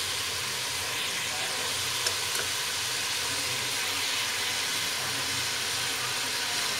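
Beef strips frying in hot oil in a pot, sizzling steadily, with one sharp pop about two seconds in.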